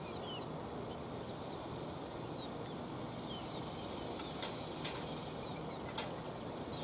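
Outdoor ambience with small birds chirping over and over in short quick notes and a faint steady high insect buzz. Three light clicks of a knife and fork against a plate come in the second half.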